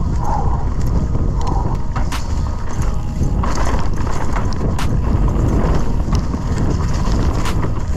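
Scott Ransom 920 full-suspension mountain bike descending a dirt forest trail at speed: tyres rumbling over the ground and wind buffeting the camera microphone, with sharp clicks and rattles from the bike over bumps.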